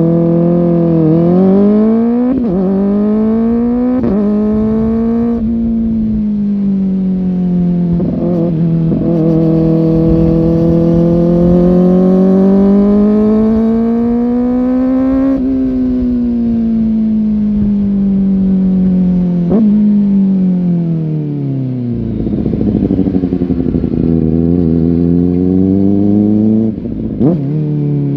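Kawasaki ZX-4R's inline-four engine pulling through several quick upshifts, its pitch climbing and dropping back each time. It then holds a high, slowly rising pitch for several seconds and winds down with falling pitch. Near the end it runs low and rough with exhaust crackle before a short blip and another pull.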